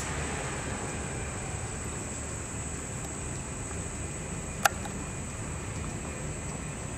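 Steady low rumble of a large indoor arena's background noise, with a faint steady high whine above it and one sharp click about four and a half seconds in.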